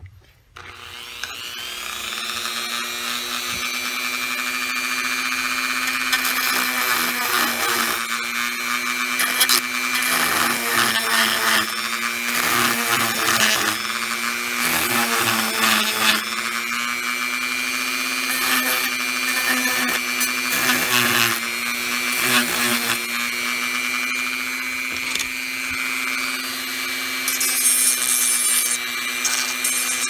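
Dremel MultiPro 395 variable-speed rotary tool starting up with a rising whine, then running at a steady pitch while its sanding drum grinds down the plastic rivet lips on a calculator case, with rough rasping each time the drum is pressed to the plastic.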